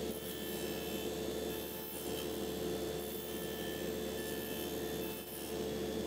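Table saw running with a dado blade while a wooden blank is rotated by hand against it, the blade shaving it round. A steady motor hum with the noise of the cut, easing off briefly twice.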